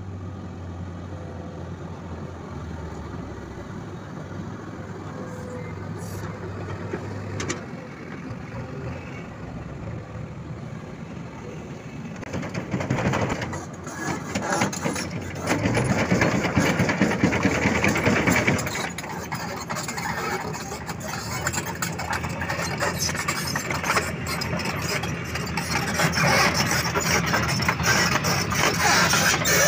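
Hyundai 220LC-7 crawler excavator's diesel engine running, steady and low at first, then in louder, rougher stretches as the machine works its hydraulics digging and swinging loads of earth.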